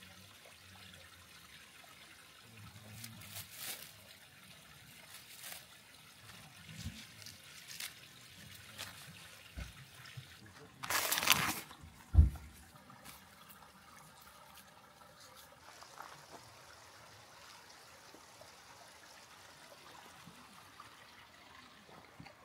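Quiet rustles and small clicks of plastic food packaging being handled while a sandwich is made, with one short, louder rustle about halfway through.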